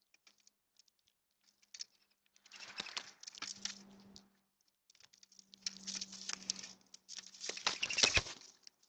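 Birds scrabbling and pecking at a feeder: three bursts of crackly pattering and rustling, the loudest near the end with a sharp knock.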